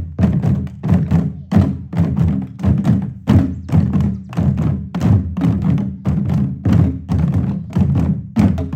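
A group of drums played together in a drumming circle, keeping a steady rhythm of strikes, a few per second, with a deep low body to each stroke.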